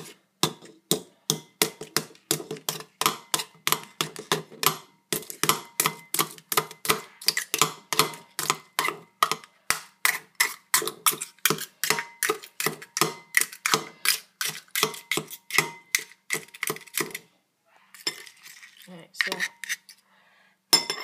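A metal utensil rapping over and over against an egg and the inside of a ceramic bowl, about three or four sharp clinks a second, smashing the egg open. The tapping stops a few seconds before the end, leaving a few softer scrapes and knocks.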